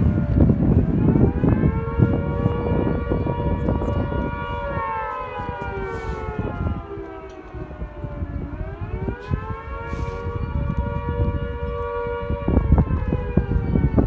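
Dual-tone WW2 air raid siren sounding the attack warning: two tones together, held high, then sliding down about halfway through and rising back up to hold again. Gusty wind buffets the microphone underneath.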